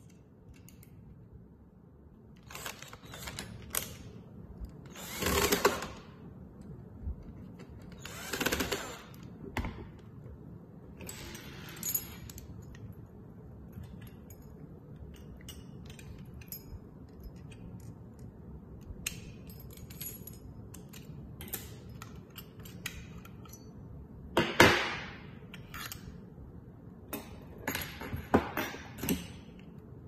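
Metal lockset parts being handled and fitted: irregular clicks, clacks and scrapes of a stainless steel latch, lever-handle assembly and rose plates, with a few louder clattering bursts.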